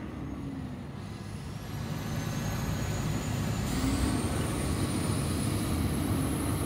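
Vehicle engine running, a low rumble that grows louder from about two seconds in, with a faint high whine slowly rising in pitch.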